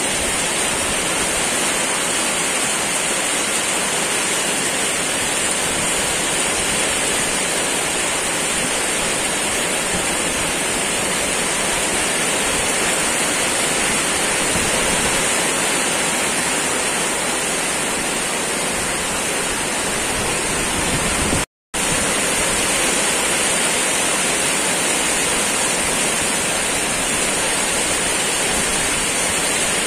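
Heavy rain pouring steadily, a dense even hiss. It cuts out for a split second about two-thirds of the way through.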